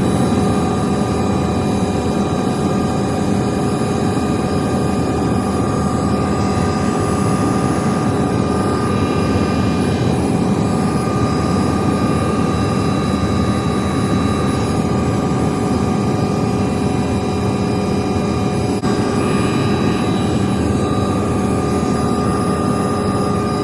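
Sightseeing helicopter's turbine engine and rotor running steadily at close range: a constant high whine over a dense, even rumble.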